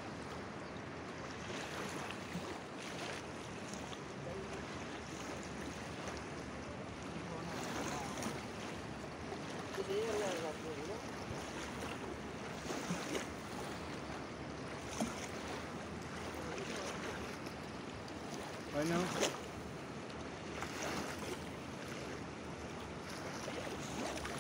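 Steady rushing noise of a wide river flowing, mixed with wind on the microphone, with a few brief voices calling out around the middle and near the end.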